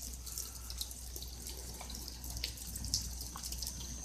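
Rain falling, with single water drops dripping close by at irregular moments.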